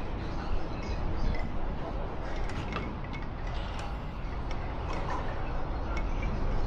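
Steady city street ambience, an even background noise with a few faint scattered clicks.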